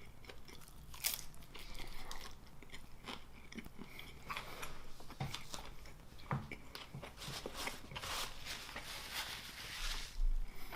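A person biting and chewing pizza close to the microphone, with irregular crunches and mouth clicks that thicken near the end.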